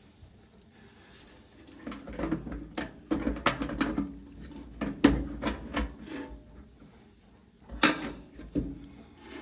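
Hands working patch panel clamps, magnets, washers and wing nuts on a car panel: irregular clicks, knocks and rubbing, with a sharp click about five seconds in and another cluster of clicks near the end.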